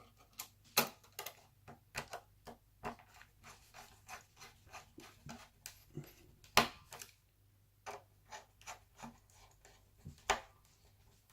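Irregular sharp clicks and taps of small laptop parts being handled and fitted during reassembly, with three louder knocks: one about a second in, one past the middle and one near the end.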